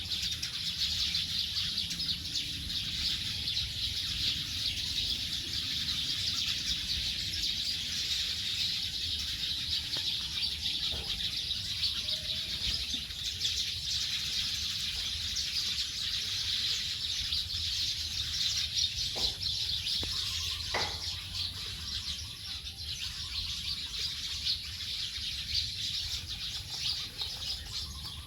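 A large flock of birds chirping together at their roost as they settle for the night: a dense, unbroken chatter of many overlapping calls, with a low rumble underneath.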